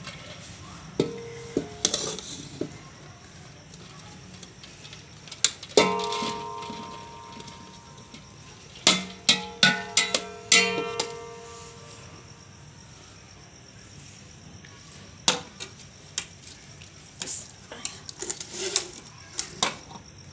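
A long steel spoon knocking and scraping against a large aluminium cooking pot and a steel bowl while spooning boiled rice in. Several of the knocks are metallic clangs that ring on for about a second, the loudest about six seconds in and in a cluster around nine to eleven seconds in.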